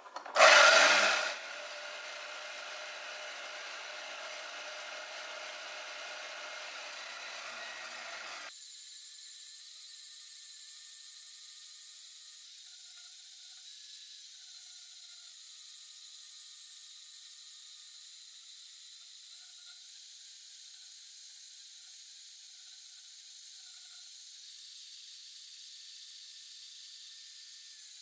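Vertical bandsaw running and cutting lengthwise through a half-inch square steel bar, with a loud burst about half a second in. The saw then runs steadily; after about eight seconds the sound thins to a high, steady whir with a wavering whine.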